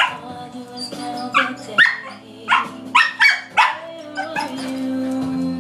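Dog barking at a pet rabbit in its cage, about eight sharp barks in quick bursts that stop about four and a half seconds in, over a song playing on a radio.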